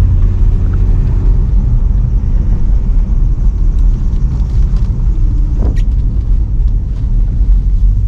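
BMW M3 E92's V8 engine running at a steady cruise: a deep, steady rumble whose pitch shifts slightly. A brief squeak sounds about five and a half seconds in.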